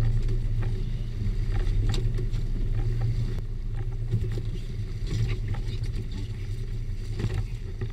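Boat engine running steadily with a low hum. Occasional knocks and splashes over it as a large bluefin tuna thrashes at the side of the boat.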